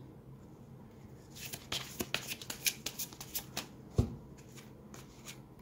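Tarot deck being shuffled by hand: a run of quick, papery card clicks lasting a couple of seconds, then a single sharper tap about four seconds in.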